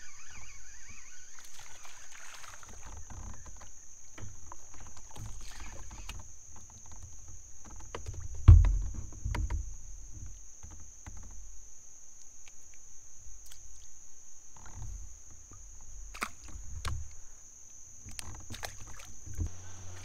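Hull and handling noise of a Sun Dolphin Kingsport 12 plastic kayak as an angler moves and fishes from it: low knocks and rumbles carried through the boat. There is one loud thump about eight and a half seconds in, and a few sharp clicks near the end.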